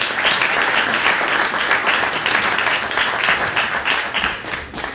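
Audience applauding, a dense patter of many hands that thins out near the end.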